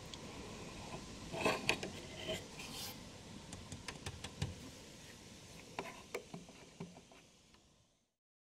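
Faint handling noise: rubbing and scattered small clicks and taps as fingers touch the plastic antenna amplifier housing and the tailgate trim, fading out near the end.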